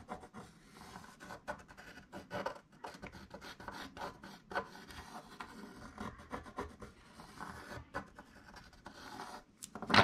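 Pencil scratching on paper in short, irregular strokes, tracing around a hood-pin part held down on the sheet. A sharper knock comes at the very end.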